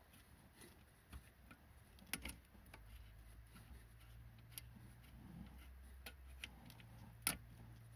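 Scattered small metallic clicks and ticks as a brake line fitting is fiddled by hand into the wheel cylinder of a rear drum brake, the sharpest click near the end. A faint low hum sits under them from about three seconds in.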